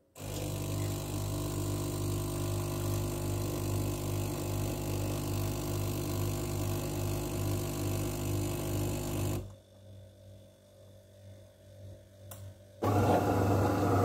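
DeLonghi Magnifica Evo espresso machine's pump running with a steady hum as espresso is brewed and pours into the cup, stopping about nine and a half seconds in. After a quieter pause with a few faint clicks, a louder machine whirr starts near the end.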